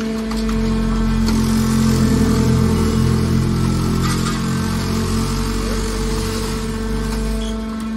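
Hydraulic scrap metal baler running under load as its ram pushes a compressed bale of scrap metal out of the chamber: a steady electric-pump hum, with a heavier low rumble that comes in about half a second in and drops away near the end.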